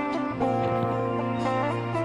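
Background music led by plucked guitar, with notes changing about every second.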